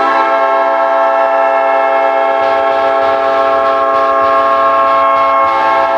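Winnipeg Jets' arena goal horn sounding one long, steady blast, a deep chord of several tones, signalling a goal.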